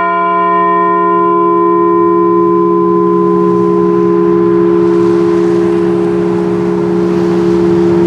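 A large memorial bell ringing on after a single toll: its higher overtones fade out over the first few seconds while the deep hum carries on steadily.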